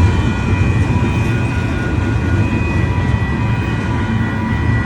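Electronic railroad crossing bell ringing steadily, its tone held over a loud low rumble.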